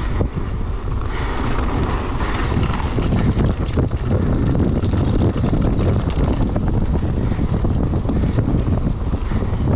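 Wind rushing over the camera microphone, with the Marin Alpine Trail XR full-suspension mountain bike's tyres rolling fast over a dirt trail and many small rattles and clatters from the bike over bumps.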